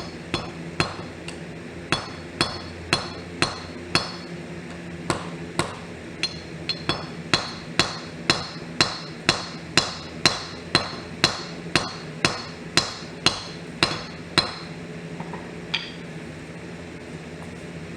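Hand hammer forging steel rebar on an anvil, flattening its end: a steady run of ringing metal-on-metal blows at about two a second, with a short pause about four seconds in. The blows stop about fourteen seconds in, with one lighter blow a second later. A steady hum runs underneath.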